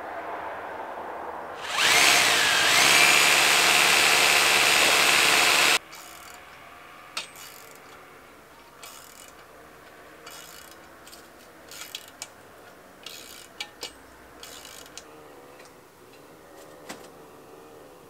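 Power drill run in one burst of about four seconds, its pitch dipping then rising as it gets up to speed, stopping abruptly: drilling or driving a fixing for a chimney flue's wall bracket. Scattered light clicks and knocks follow as the bracket is worked by hand.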